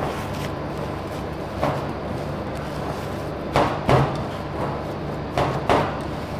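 Hands squashing and kneading a boiled chickpea and potato mixture in a stainless steel bowl, with five knocks of the bowl: one early, then two close pairs about halfway through and near the end. A steady hum runs underneath.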